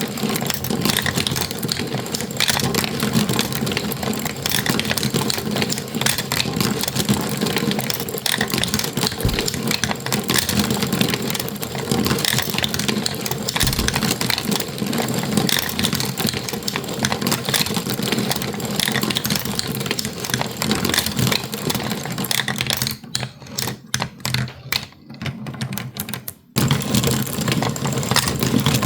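Marbles rattling and clicking down a toy marble run in a dense, continuous clatter. About 23 seconds in it thins to scattered clicks, then the full clatter starts again suddenly about three seconds later.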